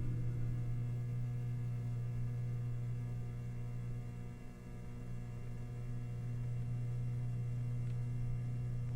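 Steady low electrical hum of laundromat machinery, one tone with fainter overtones above it, briefly dipping in level about four and a half seconds in.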